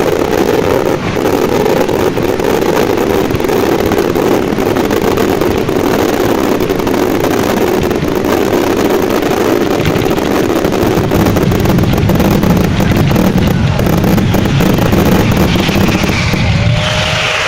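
A dense fireworks barrage heard as a continuous loud rumble with fine crackling over it, and a short gliding whistle near the end.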